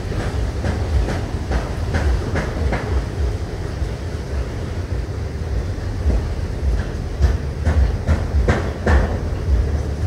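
Wind buffeting the microphone: a heavy, gusting low rumble, with irregular light clicks over it.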